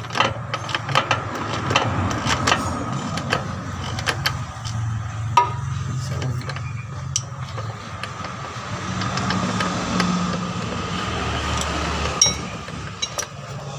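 Ratchet socket wrench clicking in quick strokes while loosening a bolt on a Toyota Starlet's rear engine mount, busiest in the first few seconds and then only a few scattered clicks, over a steady low hum.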